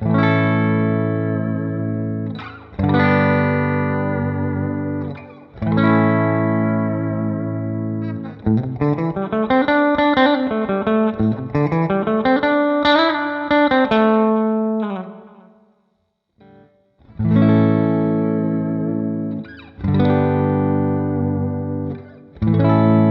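Harley Benton SC-Custom Plus electric guitar with EMG pickups, played with distortion. Big chords are struck every few seconds and left to ring. In the middle comes a passage of single lead notes with string bends, then a short break and more ringing chords.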